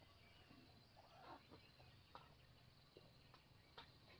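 Near silence: faint background with a few soft, scattered clicks and light knocks.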